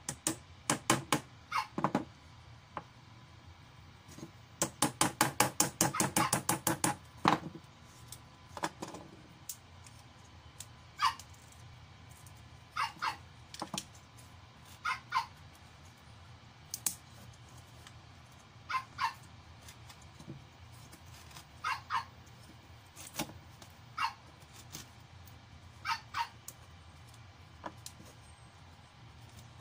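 Small hammer tapping a utility-knife blade to chip wood out of a block: a quick run of about a dozen sharp taps, then short sharp sounds, mostly in pairs, about every two seconds.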